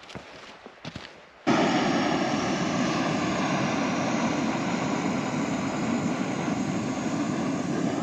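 Footsteps on a mountain trail for the first second and a half, then an abrupt cut to steady wind buffeting the microphone, a loud even rushing noise.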